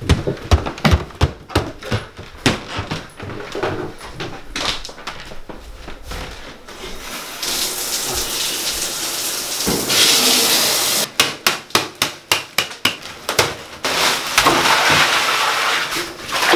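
Footsteps thudding up wooden stairs, then a steady hissing rush like water running into a bathtub in a tiled bathroom, broken about midway by a run of quick knocks and thumps.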